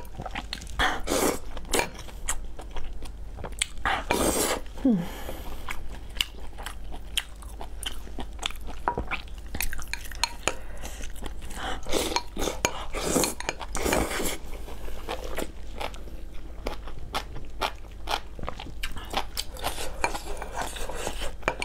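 Close-up chewing and crunching of a mouthful of spicy hot pot noodles and toppings, many short wet mouth clicks, with several louder half-second slurps of noodles.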